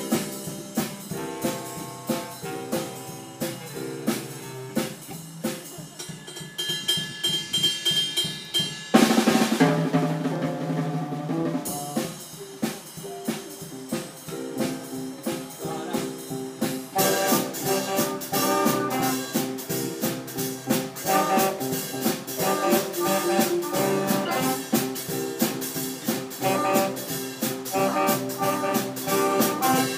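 Live instrumental ensemble playing, with a drum kit keeping a steady beat under held notes. A loud crash comes about nine seconds in, and the whole ensemble plays fuller and louder from about seventeen seconds.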